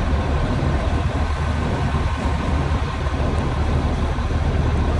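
Steady low rumble of idling motor-vehicle engines and street traffic, with no break or change.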